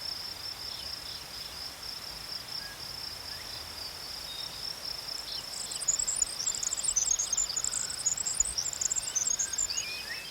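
A steady, high-pitched insect trill, crickets or similar, runs throughout. About halfway through, a bird starts quick, high chirping over it for a few seconds.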